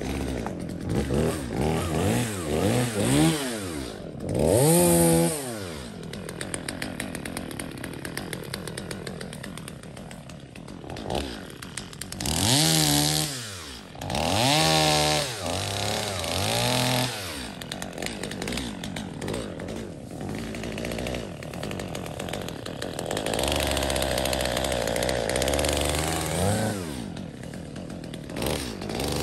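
Stihl MS 250 45cc two-stroke chainsaw running, revved up and down again and again: quick blips in the first few seconds, then longer revs around 5, 13, 15 and 17 seconds in. Between the revs it runs steadier at lower pitch, as when bogged down cutting wood, most of all in a long stretch late on.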